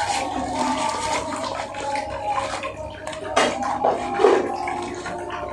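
Close-up wet chewing and lip-smacking of fried chicken, with clicks and a few sharper smacks or crunches, and the paper box rustling as it is handled.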